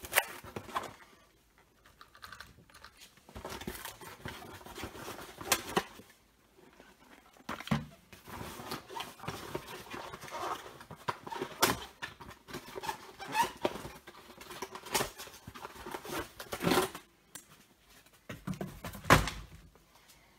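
Hands handling packaging and a plastic RC buggy: irregular rustling and scraping broken by a string of sharp knocks and thunks, with short pauses between bursts.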